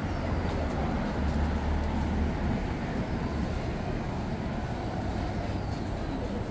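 City street traffic: a steady wash of road noise with a vehicle's low engine rumble that swells briefly about a second in.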